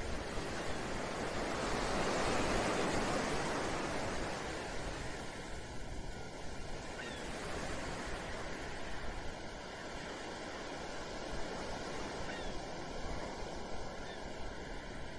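Ocean surf: a wave swells and washes in a couple of seconds in, then a steady rushing wash of waves continues.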